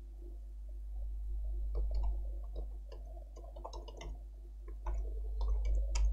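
Light, irregular clicks of a computer keyboard and mouse, sparse at first and coming thick from about two seconds in, over a steady low hum.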